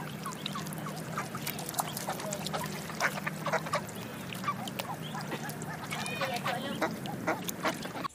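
A group of ducklings peeping, many short high-pitched calls overlapping in a busy chorus, over a steady low hum.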